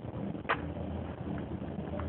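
Steady outdoor rumble with wind on the microphone, and one brief scratchy click about half a second in.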